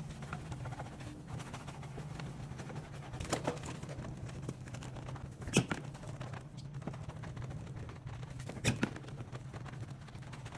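Wheel brushes scrubbing a soapy alloy car wheel, a wet rough swishing over a steady low hum, with three sharp knocks about three and a half, five and a half and nearly nine seconds in as the brush strikes the rim.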